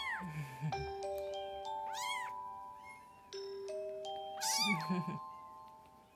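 Young kitten mewing three times, short high cries that rise and fall, while held down for claw trimming, over background music of held, stepping notes.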